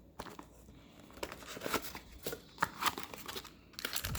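Plastic wrapping crinkling and tearing as a pack of trading-card promos is opened by hand. The rustles are intermittent, sparse at first and busier near the end.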